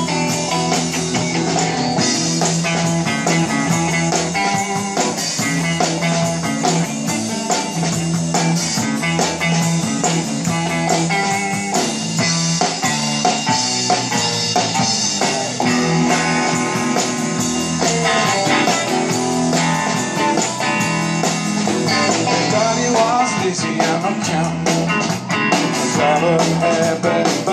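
Live band playing an instrumental passage on electric guitars, bass and drums, with no singing.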